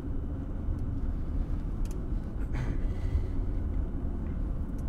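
Steady low rumble of a car driving, engine and road noise heard from inside the cabin, with a couple of faint clicks around the middle.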